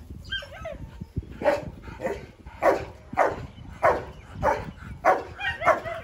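Dog barking repeatedly, somewhat under two barks a second, from about a second and a half in, after a few short high yelps near the start.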